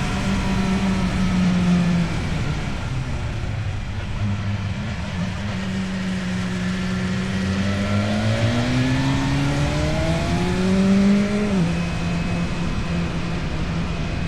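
Motorcycle engine running through an Akrapovic exhaust, held at a steady pitch at first. About halfway through the revs rise as it accelerates, then drop sharply near the end at an upshift and settle again.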